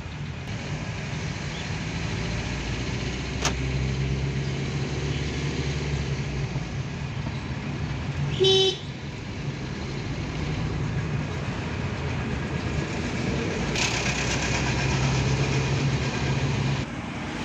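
Engine and road noise heard from inside a moving car, with a short, loud horn toot about halfway through.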